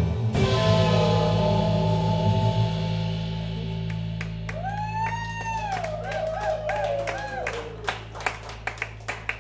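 A live rock band's final chord, struck just after the start, rings out and slowly fades. In the middle a gliding tone rises, wavers up and down and falls away. Scattered claps start in the second half and grow more frequent near the end.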